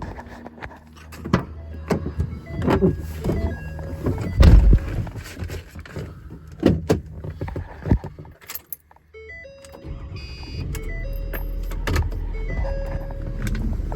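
A string of sharp knocks and clunks, then from about ten seconds in an engine running steadily with a low hum.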